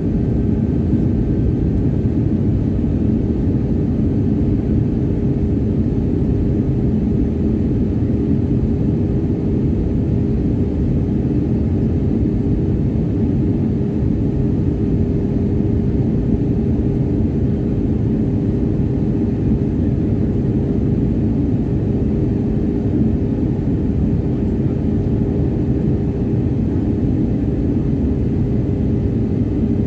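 Airliner cabin noise heard from a window seat in flight: a loud, steady rumble of engines and airflow with a constant hum running through it.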